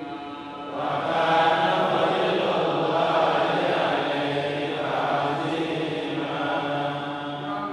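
A man's voice reciting the Quran in Arabic in the melodic, chanted tajweed style, with long drawn-out notes that bend slowly in pitch; the voice gets louder about a second in.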